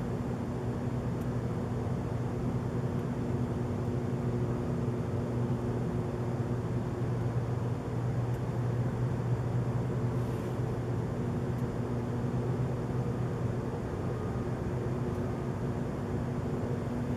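A steady, unidentified low droning hum with several fixed pitches, barely changing throughout: the 'strange noise' heard from a house window in the night.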